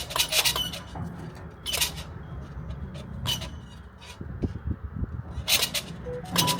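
A crane running as it slews, with a steady low engine hum and repeated short hissing bursts every second or two.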